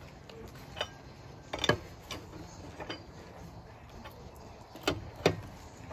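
Four-way cross lug wrench on the wheel's lug nuts, snugging them with light pressure so the wheel won't shift when lowered: about six sharp, separate metal clicks spread across a few seconds.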